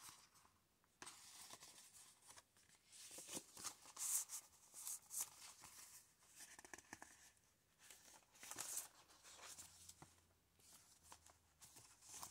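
Faint, intermittent rustling and sliding of paper and card as decorated tag cards are pulled from a paper pocket in a handmade junk journal and handled.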